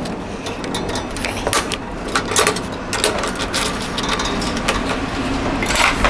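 Irregular clicks and light metal knocks from hand tools and a copper strap as the strap is fitted and fastened in place.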